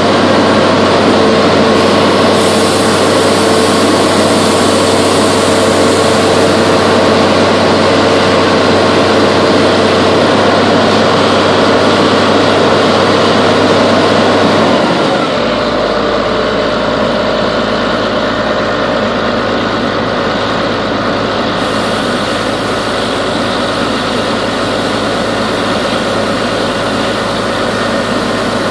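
A log loader's diesel engine running steadily, heard from inside the operator's cab while the machine works logs. About halfway through the engine note drops and the sound gets slightly quieter.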